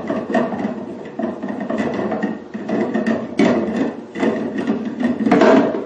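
Hard plastic parts knocking and clattering in an irregular run as the beauty machine's wastewater container is handled, with the loudest knock near the end.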